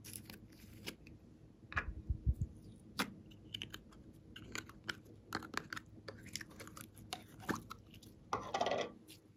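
A bear-shaped plastic slime tub being handled and opened and its glitter slime pulled out: a run of small plastic clicks and crackles, a few soft low knocks about two seconds in, and a longer crackle of sticky slime being squeezed near the end.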